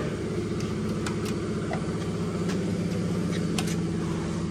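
An engine idling steadily, with a few light clicks and taps over it.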